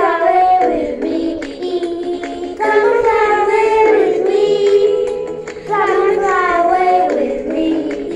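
A girl singing a song into a handheld karaoke microphone, along with recorded music. Her voice comes in long sung phrases with two short breaks, about a third and two thirds of the way through.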